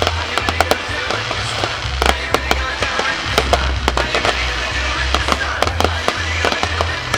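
Aerial fireworks going off in quick succession, a dense run of sharp bangs and crackles several times a second. Music with a heavy bass line plays underneath.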